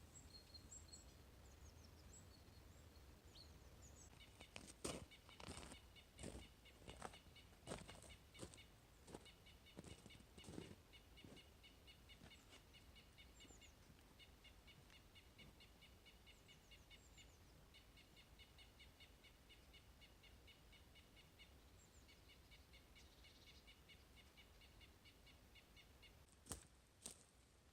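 Small birds calling: a few high chirps, then a long series of quick, repeated high notes that stops and restarts several times. Sharp knocks come at irregular intervals, about one a second, between roughly four and eleven seconds in, and again near the end.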